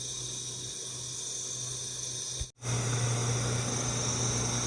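Distant boat motor droning steadily on the river, with night insects chirping high and steady over it. The sound drops out for an instant about halfway through, and the drone is louder afterwards.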